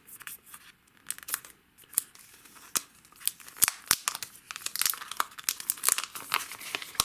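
Thin plastic wrapping crinkling and tearing as it is pulled off a new smartphone, in quick crackles that grow busier about halfway through.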